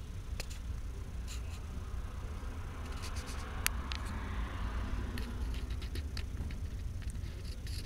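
Freight train rolling past at moderate speed: a steady low rumble from the cars, with scattered sharp clicks and a hiss that swells in the middle.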